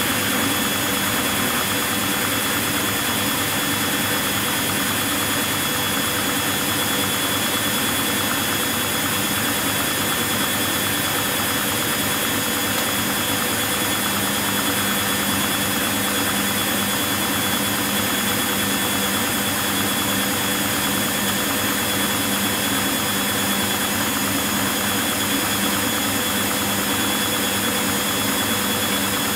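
Constructa Contura washing machine spinning at high speed: a steady, loud motor and drum whine with several high tones held level. A low hum comes in about halfway through.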